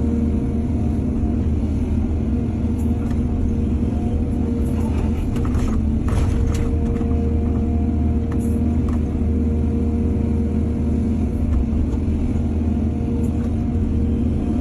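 Heavy diesel engine of an excavator running steadily under load, with a few brief scraping and clattering sounds around the middle.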